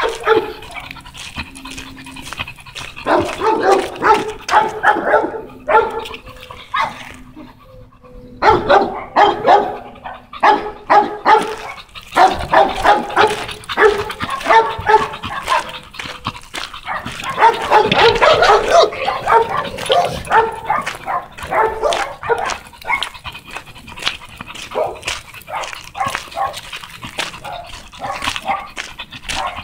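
American bully dog panting and huffing hard in quick rhythmic breaths, close to the microphone, while walking on the leash. The breathing thins out briefly about seven seconds in and is loudest and densest around the middle.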